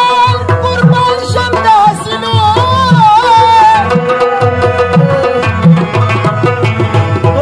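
Live Pashto folk music: tabla beating a steady rhythm under harmonium and rabab, with a male voice singing a wavering, ornamented melody.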